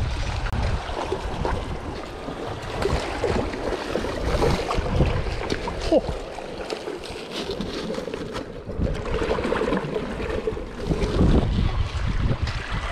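Sea water washing and splashing around the rocks at the water's edge while a hooked pollack is brought in to hand.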